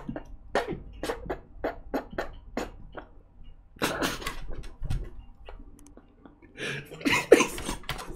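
A man laughing hard in short breathy bursts, about two a second at first, breaking into louder fits of laughter about four seconds in and again near the end.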